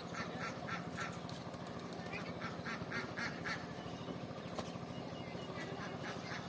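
Birds calling in quick runs of short, harsh calls, several a second, with a pause in the middle, over a steady low hum.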